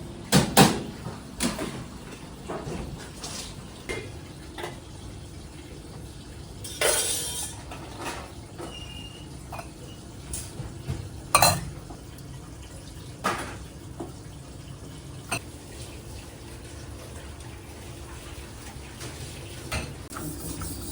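Dishes and utensils clattering: scattered knocks and clinks over a steady low hum, the loudest near the start and about eleven seconds in, with a short rush like running water about seven seconds in.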